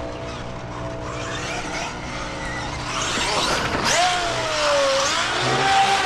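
Traxxas Maxx Slash RC truck's brushless electric motor and drivetrain whining under throttle, building up about three seconds in; while the truck is airborne the whine glides down in pitch and back up. A hard hit at the very end as the truck comes down and tumbles.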